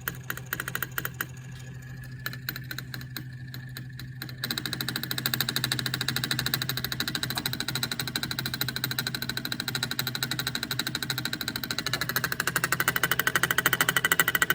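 Faulty Delphi EGR valve, which set a P0404 code, clicking irregularly over an idling engine, then about four seconds in breaking into a rapid, steady chatter that grows louder near the end. The noise is the sign of the failed valve, whose pintle position wanders all over the place.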